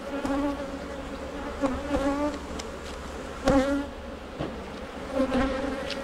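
Honey bees buzzing around an opened hive, a steady hum with single bees passing close by, their buzz bending up and down in pitch, the loudest about three and a half seconds in. The colony is stirred up by the inspection.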